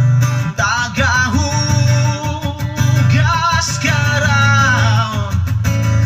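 A guitar-led song with a heavy, steady bass line, played loud through a stack of outdoor speaker boxes as a sound-system test.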